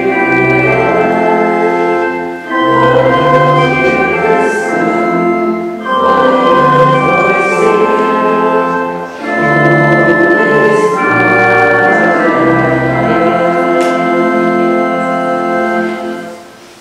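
Organ playing slow, held chords in phrases with short breaks between them, stopping just before the end.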